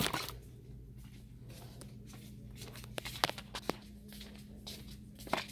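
Footsteps in flip-flops on a hard store floor: irregular sharp slaps and clicks while walking, over a steady low hum.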